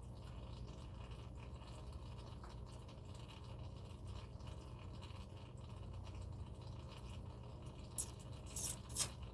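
Faint scraping and handling noises over a steady low hum, as oil is poured into a new oil filter to prime it. A few short, sharp clicks come near the end.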